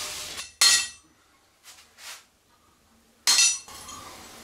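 Two sharp metallic clinks of steel striking a steel anvil, each ringing briefly, about half a second in and again near the end, with two faint taps between them.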